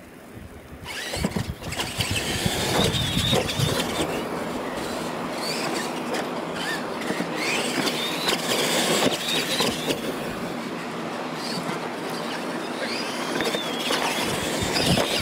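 Electric radio-controlled monster trucks racing, their motors and gears whining. The whines rise and fall again and again as the trucks accelerate and let off, over a steady rush of noise. The sound builds about a second in.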